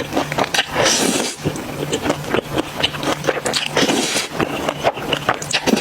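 Close-miked mukbang eating sounds: a person chewing food, with many quick wet smacks and clicks.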